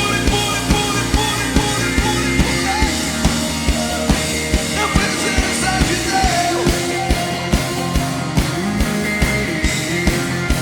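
Live worship band playing an upbeat rock-style song, with a steady driving drum beat under sustained guitar and keyboard tones.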